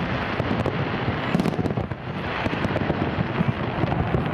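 Aerial fireworks shells bursting in a continuous barrage, many pops and bangs overlapping, with a brief lull about two seconds in.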